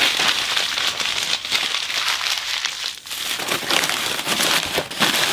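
Newspaper and other paper being crumpled by hand and pushed into a cardboard shoebox: continuous rustling and crackling, with a brief lull about three seconds in.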